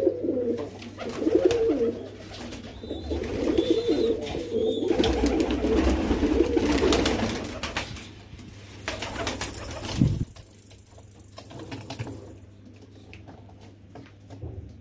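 Fantail pigeons cooing, a repeated low warbling coo through the first seven seconds or so. About ten seconds in there is a single low thump, and the rest is quieter.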